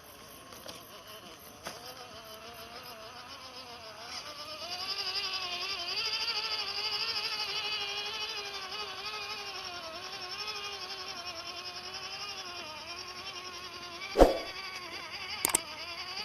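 The electric motor and gearbox of an MN99S 1/12-scale RC crawler whine steadily, the pitch wavering up and down with the throttle. The whine grows louder about a quarter of the way in. There is a sharp knock near the end, then a click.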